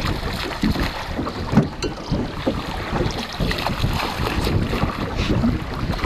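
A hooked fish thrashing and splashing at the water's surface as it is reeled in beside the boat, with wind buffeting the microphone.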